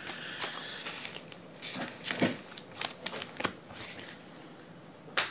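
Trading cards and foil pack wrappers being handled: scattered soft rustles, crinkles and light clicks, with one sharper click near the end.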